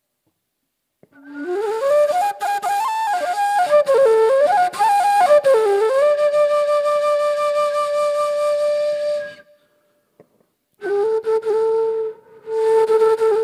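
Solo flute melody. It slides up from a low note about a second in, winds through short bending phrases and settles on a long held note. That note cuts off, and after a second of silence a lower long note begins.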